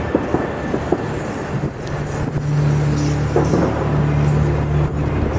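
A motor vehicle engine running with a low, steady hum that grows louder about two seconds in, with a few light clicks in the first second.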